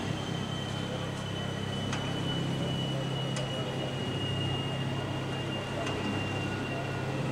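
Class E10 electric locomotive running: a steady low hum with a thin high whine that slowly drops in pitch, and a few faint clicks.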